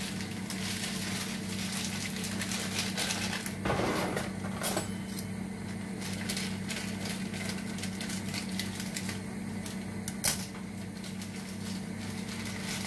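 Plastic packaging of frozen parathas being handled: crinkling and rustling now and then, louder about four seconds in, with a sharp click about ten seconds in. A steady low hum runs underneath throughout.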